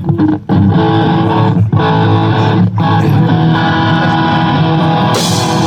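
Rock band playing live, an instrumental stretch led by guitar over bass and drums; a bright cymbal-like wash comes in near the end.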